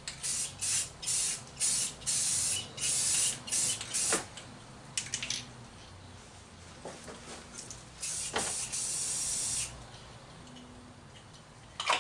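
Aerosol spray paint can spraying in a run of short hissing bursts, then one longer spray about eight seconds in, with a couple of light knocks between. It is rust-preventive enamel being laid on a steel wheel rim.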